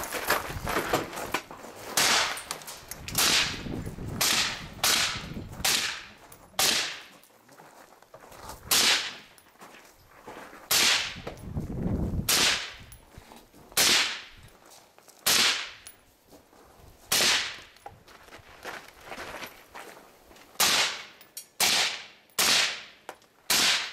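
Rifle shots fired one after another at an irregular pace, about seventeen sharp cracks over some twenty seconds, several in quick pairs.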